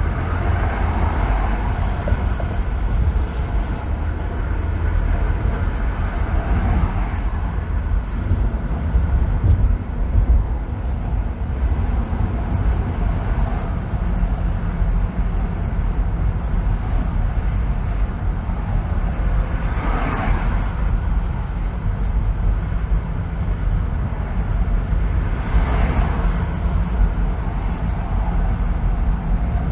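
Road noise of a car driving on a freeway: a steady low rumble with tyre and wind hiss that swells briefly about four times.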